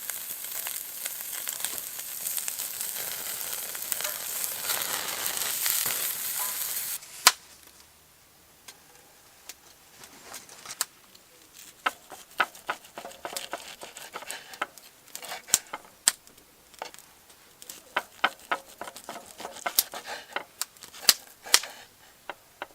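Meat sizzling loudly over a campfire, a dense steady hiss that cuts off suddenly with a sharp click about seven seconds in. Scattered crackles and clicks follow, much quieter.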